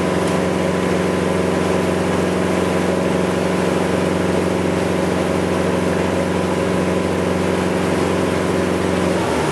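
A sightseeing boat's engine heard from on board, running with a steady, even drone. The engine note changes and drops lower near the end.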